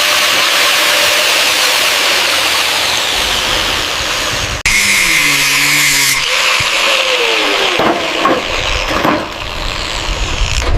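Power tool running with a steady, dense hiss, which breaks off for an instant about halfway through and picks up again.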